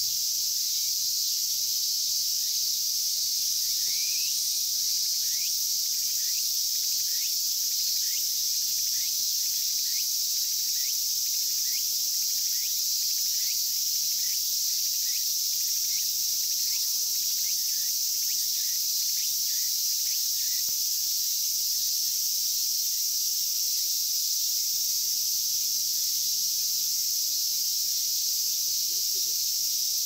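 Cicadas singing: a steady, high buzzing chorus, fitting robust cicadas (aburazemi). From a few seconds in until about two-thirds of the way through, a short rising note repeats about every half-second.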